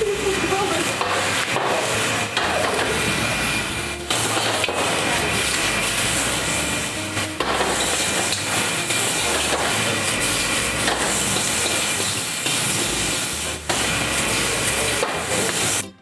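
Seafood stir-frying in a wok of very hot oil: a steady sizzle and hiss, with the oil alight and flames flaring over the pan. A metal spatula scrapes and knocks against the wok now and then.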